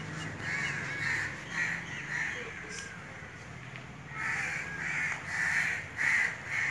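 Crows cawing repeatedly in two runs of short harsh calls, the second run starting about four seconds in and coming faster and louder.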